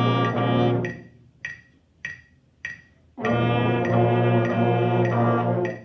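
Beginning brass ensemble of trumpets, French horns, baritones and trombones playing a warm-up exercise together: a held chord that stops about a second in, a rest of about four beats, then a second held phrase of about four beats. A metronome clicks steadily, about 100 beats a minute, through the playing and the rest.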